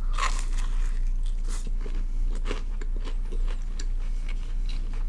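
Biting into a potato-filled samosa and chewing its crisp fried pastry: a run of irregular small crunches and mouth clicks.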